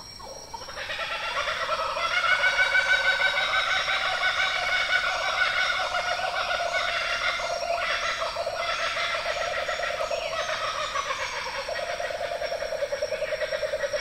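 Laughing kookaburra calling: a long, loud, rapid laughing chatter that builds up over the first couple of seconds and keeps going, its pulses coming quicker near the end.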